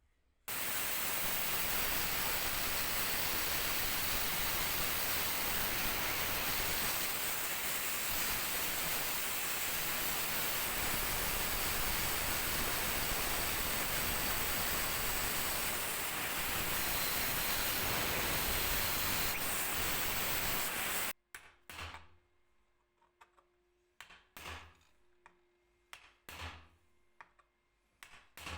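A workshop tool runs with a steady, even rushing noise for about twenty seconds, then cuts off abruptly. It is followed by several sharp knocks, like wood being tapped.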